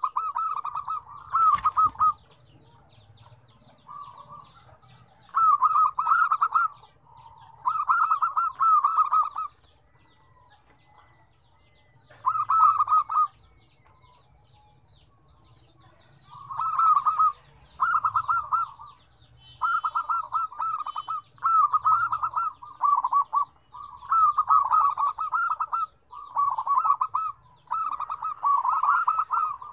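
Several zebra doves (perkutut) cooing in short, rapidly pulsed staccato phrases of about a second each. The phrases come one after another and overlap, with a lull of several seconds in the middle. A sharp click sounds about a second and a half in.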